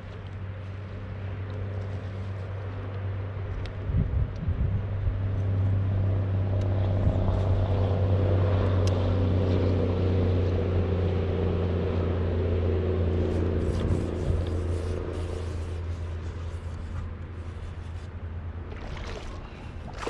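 An engine's steady low hum at constant pitch, growing louder through the middle and fading again. Near the end comes water splashing as a hooked fish thrashes beside the kayak.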